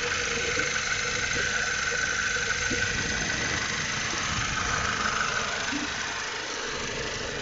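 BMW E90's N46B20 four-cylinder petrol engine idling steadily, with a noise the owner cannot place, either a knock or a hum, which the service says is nothing wrong. The sound eases off a little near the end.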